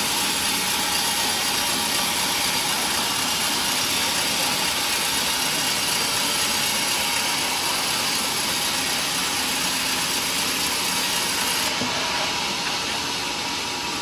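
Band sawmill blade cutting lengthwise through a teak log, a steady mechanical sawing noise that eases slightly near the end.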